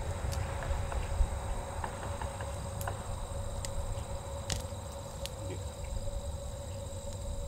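Insects trilling steadily outdoors in several high pitches, over a low rumble, with a few light clicks and rustles scattered through.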